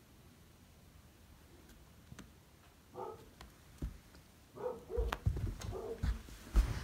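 Flame Point Siamese cat making several short chirping calls, starting about three seconds in, mixed with low thumps and a few knocks as she plays on the carpet.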